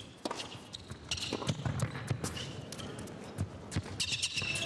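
A tennis ball bouncing on the court, with scattered knocks and a low crowd murmur between points.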